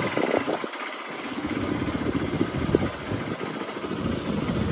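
Motorcycle engine running, its low rumble dropping away briefly about a second in and again later.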